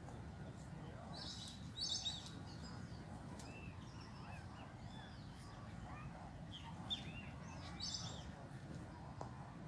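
Small birds chirping and calling in short, scattered notes, with a louder flurry of rapid high notes a little over a second in and again near the end, over a steady low rumble of background noise.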